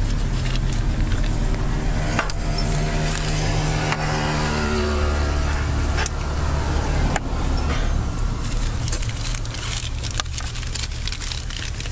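An engine running close by, its hum steady with a clear pitched drone that drops in pitch about four to five seconds in, with a few light clicks over it.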